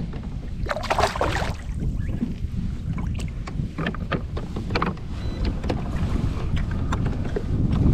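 Wind buffeting the microphone on open water, with a brief rush of noise about a second in and scattered sharp clicks and knocks from rod and reel handling as a spinning rod is cast.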